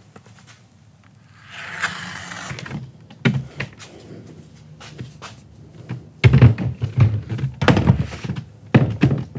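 Packaging rustling as stretch wrap is pulled off a sliding glass door panel, then a few knocks. In the second half come loud, heavy clunks and knocks of the aluminum door panel as it is lifted into the frame head and set on the track.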